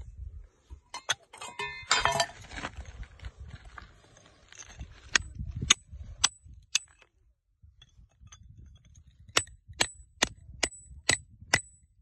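Hammer striking a steel chisel driven into a crack in a rock to split it open, each blow a sharp metallic clink with a short high ring. There are four blows about half a second apart, a pause of a couple of seconds, then a steady run of blows about two a second. Before the blows, a few knocks and scraping against the stone.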